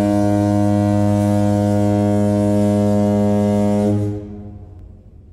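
A foghorn sounding one long, steady, deep blast that holds for about four seconds and then fades away.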